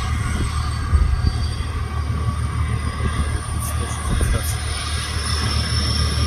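Large turbofan engine running on a test stand: a steady low rumble with a thin high whine that climbs slowly in pitch as the engine spools up.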